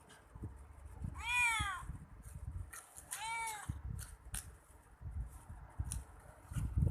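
Domestic cat meowing twice, two drawn-out calls that rise and fall in pitch, about a second in and again about three seconds in, with a few short clicks between them.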